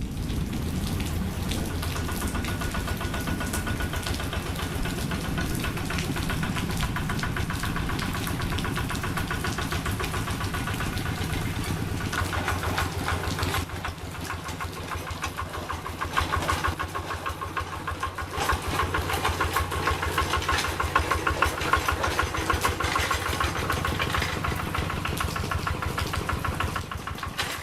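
Diesel engine of a Quick G3000 Zeva two-wheel hand tractor running with a fast, even firing beat. About halfway through, the sound shifts, and then it runs louder with more clatter, as under heavier working load.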